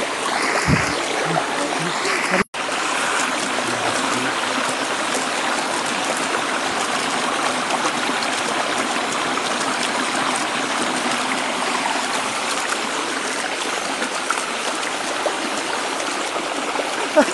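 Shallow stream water rushing and splashing over leaves and twigs in a small channel, a steady noise. The sound cuts out for an instant about two and a half seconds in.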